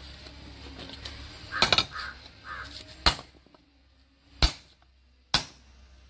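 Four sharp knocks about a second apart, consistent with a painted pipe lying on a wooden block being struck. A crow caws three times about two seconds in.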